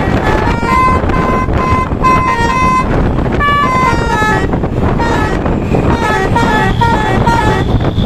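Truck's telolet horn playing a quick tune of short stepped notes, several a second, growing fainter in the second half, over a steady low rumble.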